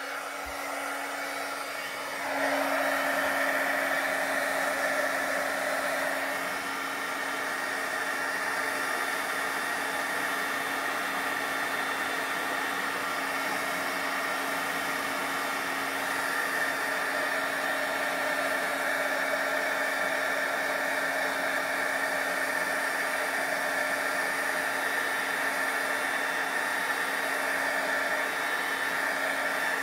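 Embossing heat tool blowing steadily, its fan motor humming with a constant tone while it melts a layer of embossing powder. It gets louder about two seconds in.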